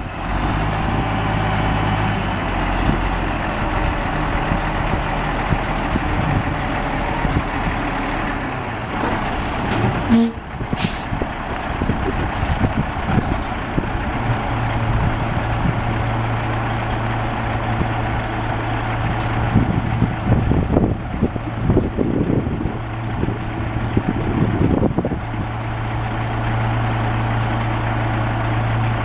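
Caterpillar C12 diesel engine of a Kenworth T800B dump truck running steadily while the hydraulic hoist raises the dump bed. The engine note steps up in pitch about fourteen seconds in, and a short burst of air hiss comes about ten seconds in.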